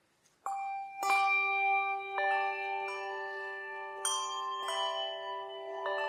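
Slow music of struck, bell-like notes that ring on and overlap one another, starting about half a second in after a brief near silence.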